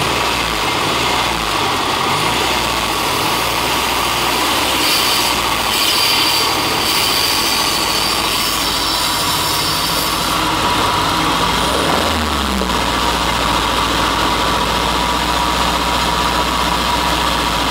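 Ford Ranger's 2.3 Duratec inline-four engine idling steadily while burning off a Seafoam treatment, with white exhaust smoke. The engine note dips and comes back up briefly about twelve seconds in.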